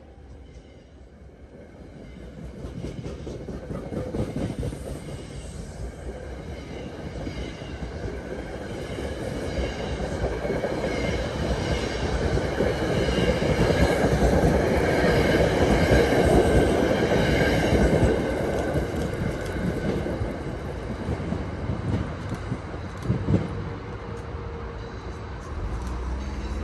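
NJ Transit single-level passenger coaches passing close at speed: steel wheels rumbling and clattering on the rails. The sound builds to its loudest about halfway through as the cars sweep by, then fades.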